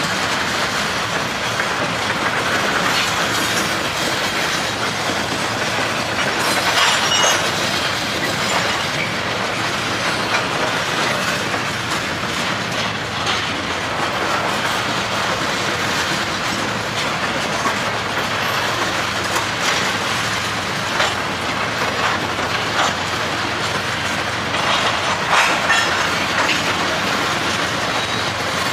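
Open gravel hopper cars of a long freight train rolling past: a steady rumble of steel wheels on rail, broken by occasional sharp clacks as wheels cross rail joints.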